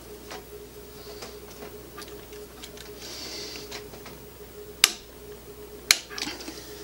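Torque wrench and barrel nut wrench tightening an AR-15 barrel nut toward 50 foot-pounds: light metallic ticks as the wrench is worked, then two sharp metal clicks about a second apart near the end. A faint steady hum runs underneath.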